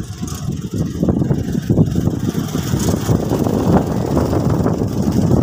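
Strong wind buffeting the microphone: a loud, uneven low rumble.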